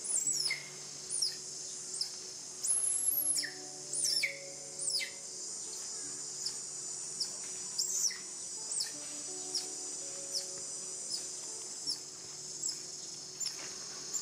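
Baby macaque crying in shrill, high squeals that slide down in pitch, several in the first five seconds, then shorter squeaks about once a second, as its belly and chest are massaged. A steady insect drone runs behind.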